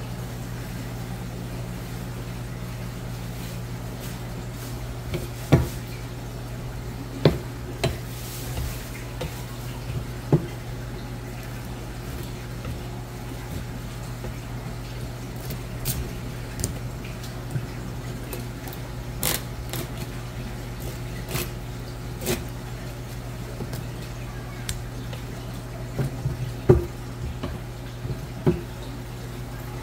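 A fish knife working through a headless grey mullet on a paper-towel-covered cutting board, giving scattered sharp clicks and knocks of the blade, over a steady low hum.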